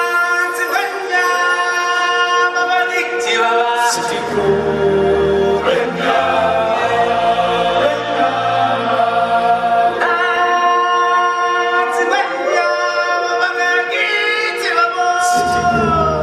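Choral singing from a stage musical: several voices holding long notes over music. Deep bass notes come in about four seconds in, drop away about ten seconds in, and return near the end.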